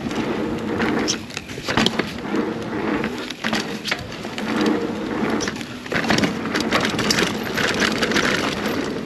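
2021 Scott Spark 970 full-suspension mountain bike riding down a dirt trail: tyre noise on the dirt, with the bike clicking and rattling over bumps.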